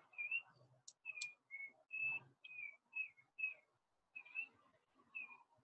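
A bird chirping over and over, faint short high notes about two a second, with two light clicks about a second in.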